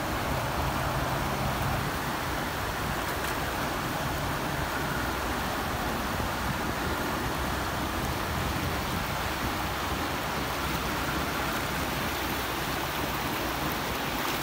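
Steady rush of a fast-flowing river running over shallow rapids.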